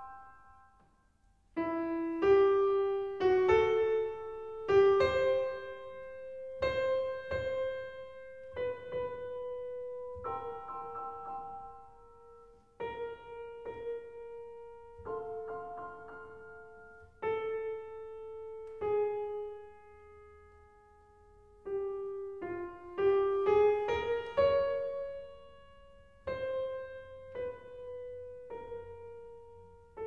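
Solo piano playing slow romantic music: after a brief pause, single notes and chords struck one at a time, each left to ring and fade, with a quick flurry of notes about 23 to 25 seconds in.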